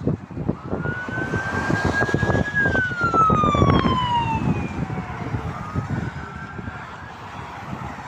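Ambulance siren wailing as the ambulance passes close by: one loud tone rises in pitch, then slides down after the middle, and fainter siren tones follow. Rumble of passing motorway traffic runs underneath.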